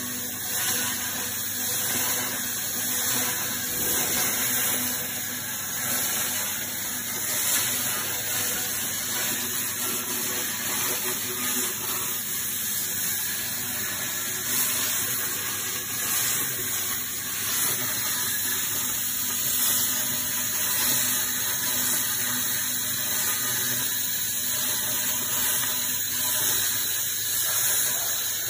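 2000 W handheld fiber laser cleaning head ablating rust from a steel plate: a steady, high hiss while the beam sweeps the surface.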